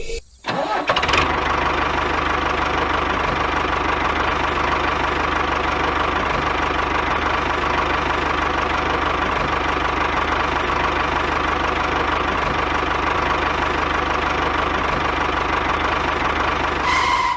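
A small engine running steadily at an even speed with a fast, regular knocking beat, starting about a second in and cutting off sharply at the end.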